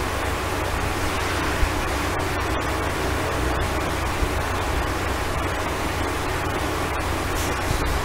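Steady hiss with a low rumble underneath, and a couple of brief clicks.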